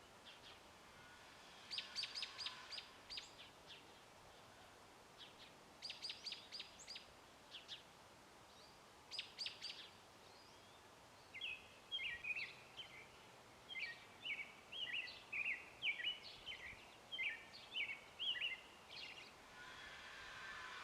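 Songbirds singing: three short bursts of quick, sharp notes in the first half, then a continuous warbling song of short varied phrases through the second half.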